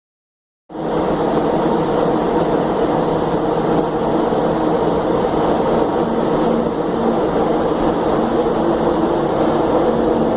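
Steady mechanical hum with a few constant tones, heard inside a series 2100 electric train car (TUE). It starts abruptly less than a second in and holds an even pitch, with no speeding up or slowing down.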